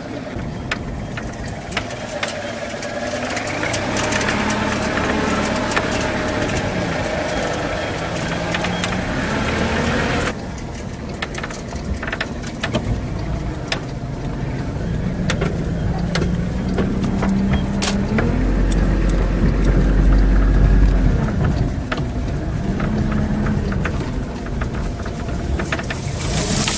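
A vehicle's engine and road noise, heard from a moving vehicle, with frequent short knocks and rattles. In the second half the engine note rises and falls as the vehicle changes speed.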